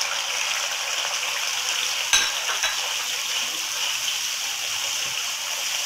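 Masala of onion, tomato and ginger-garlic paste with freshly added ground spices sizzling steadily in hot ghee in a wok while a spatula stirs it, with one sharp knock about two seconds in.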